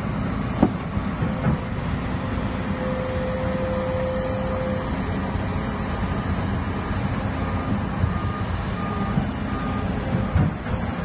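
Komatsu bulldozer's diesel engine running steadily, with a reversing alarm beeping evenly through the second half. A couple of sharp knocks come about half a second in and near the end.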